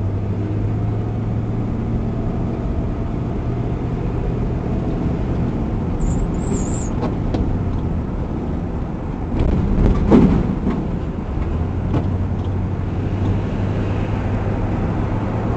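Car driving, heard from inside the cabin: a steady low engine and road hum, with a brief louder swell about ten seconds in.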